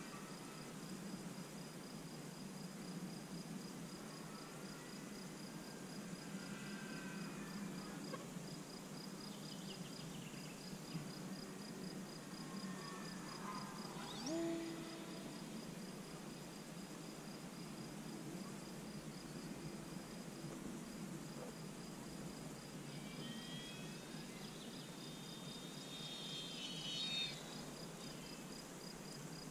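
Insects chirping steadily, a high trill pulsing evenly throughout. A few short gliding calls rise over it, the loudest about halfway through and a cluster near the end.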